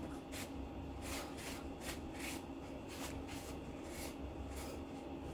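Soft, repeated rustling strokes, about two or three a second, from hands rubbing through wet hair and handling a paper tissue, over a steady low room hum.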